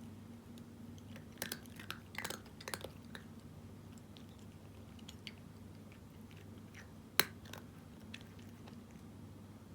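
A cat crunching dry kibble, with a quick cluster of crunches between about one and a half and three seconds in, then scattered faint crunches and one sharp click about seven seconds in. A steady low hum runs underneath.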